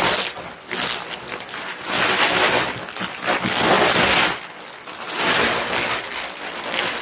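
Plastic wrapping rustling and crinkling in several long surges as a rolled, vacuum-packed memory foam mattress topper is unrolled.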